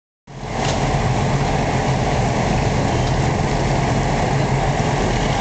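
Humvee's diesel V8 engine idling steadily with a low rumble.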